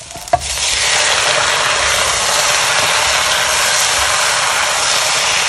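Chicken pieces sizzling steadily in hot oil as they are put back into a cast-iron potjie pot of fried onions, after a short knock about half a second in.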